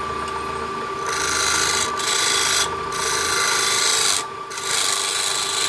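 Wood lathe running with a steady motor whine. About a second in, a hand turning tool starts cutting the spinning wooden disc with a loud scraping hiss. The cut goes in four passes with brief breaks between them.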